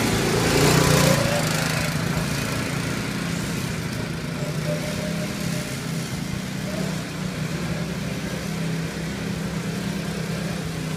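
Go-kart's small petrol engine running around the track: loudest in the first second or two as the kart passes with a rising engine note, then a steady drone.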